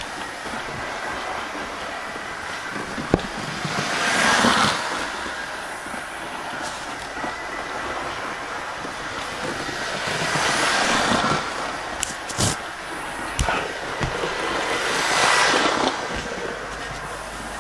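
Hornby Railroad A4 'Mallard' model locomotive running at full speed round its track, its motor and wheels whirring and swelling three times as it passes close by, with a few sharp clicks.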